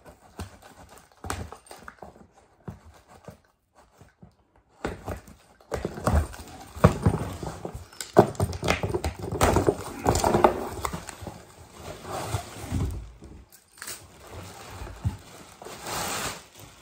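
A cardboard shipping box being opened and its contents handled: irregular knocks, scrapes and rustling of packaging, busiest in the middle stretch.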